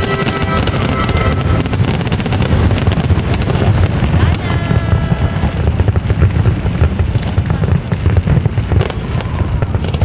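Fireworks going off in quick succession: a dense crackling of bursts over a steady low rumble, with music audible underneath.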